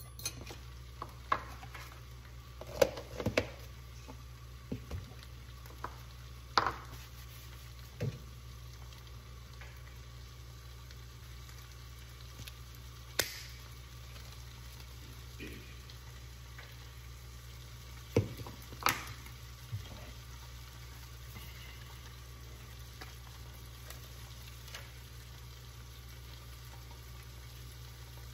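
Turkey bacon strips frying in a nonstick pan with a faint, steady sizzle over a low hum. Scattered sharp clicks and knocks of jars and packages being handled on the counter.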